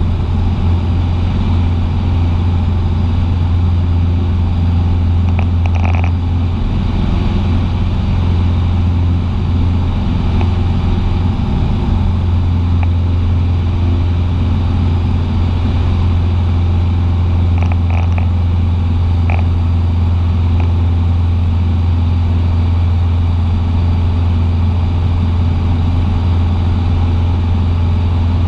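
Cessna 150's four-cylinder piston aero engine running at a steady, unchanging power, a loud low drone with a few faint ticks over it.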